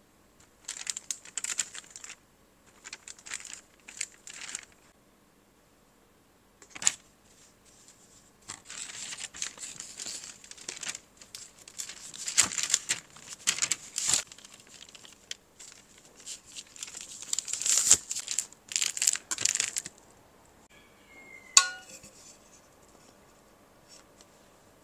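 Wooden rolling pin rolling pie dough on parchment paper: a series of crinkling, rustling strokes as the paper shifts under each pass. Near the end, a pie pan is set down on the dough with a single sharp knock and a brief ring.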